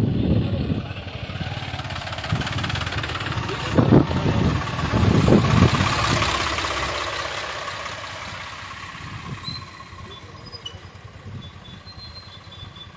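Tractor diesel engines running as they pass close by on the road, mixed with a moving motorcycle's engine and wind. The sound swells to its loudest about four to six seconds in, then fades over the second half.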